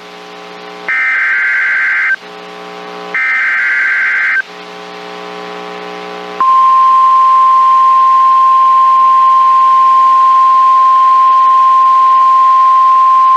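Emergency Alert System SAME header on NOAA Weather Radio: the last two of its three bursts of digital data tones, each a little over a second long, with a low buzzing hum in the pauses. About six and a half seconds in, the steady 1050 Hz weather radio warning alarm tone starts and holds.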